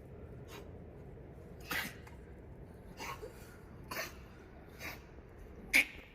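A sheltered animal sneezing repeatedly in short, sharp bursts, about six times in a few seconds; the last one is the loudest.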